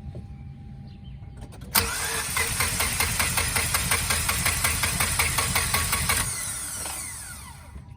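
Mazda RX-8's twin-rotor Wankel engine cranked on the starter with a rapid, even chatter for about four and a half seconds, starting suddenly a couple of seconds in, then winding down near the end. It is being cranked to check for spark at a removed plug from the front rotor, which is throwing a misfire code.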